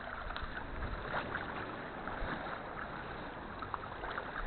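Sea water sloshing and splashing around a kayak as it is paddled, a steady wash with a few small splashes.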